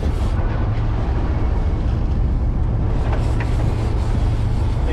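Steady low hum of a fishing boat's engines running, under a rush of wind and water.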